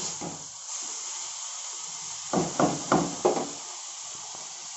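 Wooden spatula knocked four quick times against the iron kadhai, about two seconds in, over a steady hiss of leafy greens frying in the pan.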